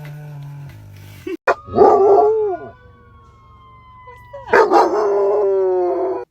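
A dog howling: the tail of a long howl sliding down in pitch, a short yowl about two seconds in, then another long drawn-out howl, slowly falling, from about four and a half seconds that cuts off suddenly.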